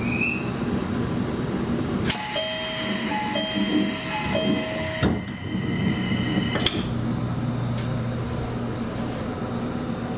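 Door closing on a JR Kyushu 787-series train: a repeating two-note door chime plays about three times over a loud air hiss and ends in a knock as the door shuts. A second hiss follows and stops with a click, and then a steady low hum is left.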